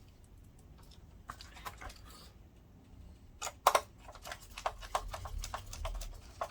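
Small clicks and taps of screws and hand tools being handled on a projector's metal and plastic chassis, sparse at first, with a louder double click about three and a half seconds in and a quick run of light clicks after it.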